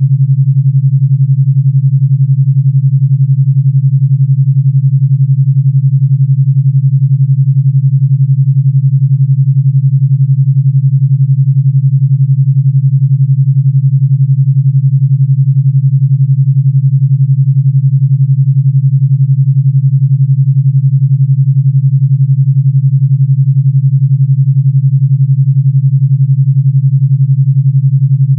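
Steady low electronic pure tone at 141 Hz, held unchanged throughout: a generated meditation frequency tone meant to carry an 11 Hz alpha-wave beat.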